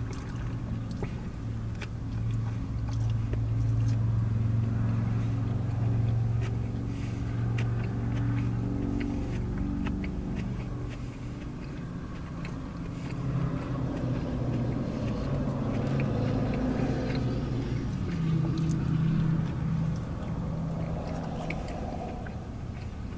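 Close-up chewing and biting of a soft-bread sub sandwich, with small wet clicks scattered through, over the steady low hum of the car's idling engine.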